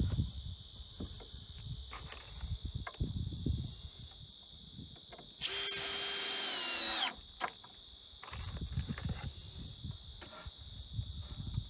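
Cordless drill running once for about a second and a half, about halfway through, as it drives into a wooden stair tread. Its pitch sags just before it stops.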